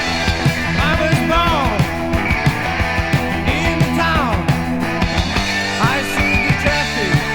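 Early-1980s heavy metal band recording: drums and electric guitars with bass, with high notes bending up and down in pitch about a second, four seconds and six seconds in.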